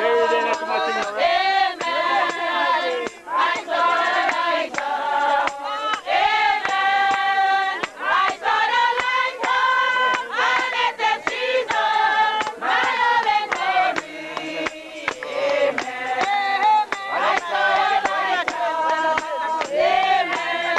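A group of many voices singing together, men and women, with frequent sharp clicks running through the singing.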